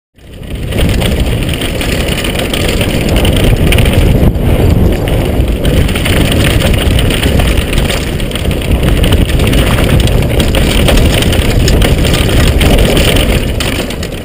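Wind buffeting the microphone, with a mountain bike rattling over a rough trail on a fast downhill run. The noise is loud and steady and cuts in abruptly at the start.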